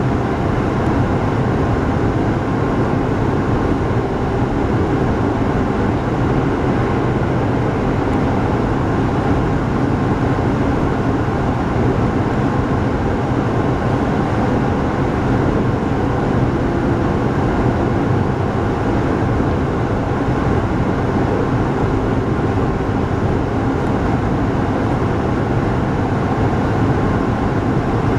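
Steady running noise of a local passenger train at speed, heard from inside the car: an even rumble with no breaks or changes.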